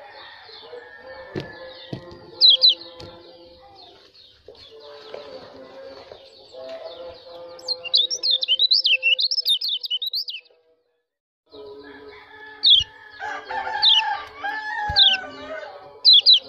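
White-eye giving sharp, high chirps and a fast twittering run, over a busy background. The recording drops out for about a second in the middle, then the single chirps resume.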